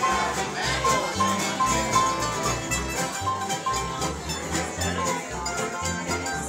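Acoustic string band of guitars and fiddle playing a country-bluegrass tune, with a steady bouncing beat of low bass notes under held fiddle-and-guitar melody notes.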